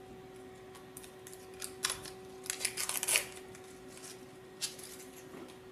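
Protective plastic film being peeled off a red plastic panel: a run of crackles and rustles from about one to three seconds in, and a shorter one near the end. A faint steady hum runs underneath.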